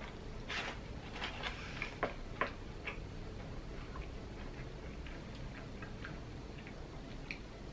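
Close-up chewing of crispy chicken nuggets: wet mouth clicks and small crunches, busiest in the first three seconds, with two sharp clicks about two seconds in, then only a few scattered clicks.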